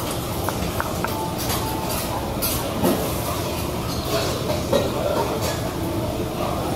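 Noodles sizzling and steaming on a hot teppanyaki steel griddle over a steady low rumble, with a few light metal spatula clicks in the first second.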